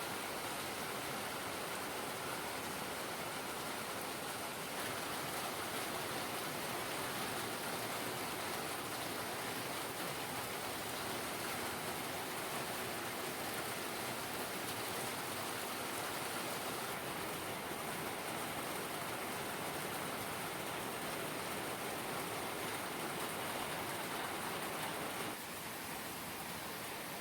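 Steady rain falling, an even hiss that drops slightly quieter near the end.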